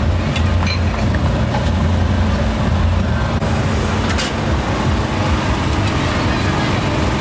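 Steady low engine rumble of road traffic, with a few short sharp clicks, the clearest about four seconds in.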